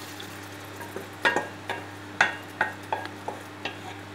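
Wooden spatula stirring pork in a nonstick frying pan, knocking against the pan in a series of sharp taps about two a second starting about a second in, over a faint sizzle as sauce goes into the hot pan.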